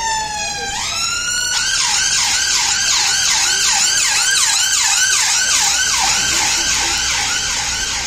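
London ambulance siren passing close by: a slow wail that sweeps down and then back up, switching about a second and a half in to a fast yelp of about three rises a second.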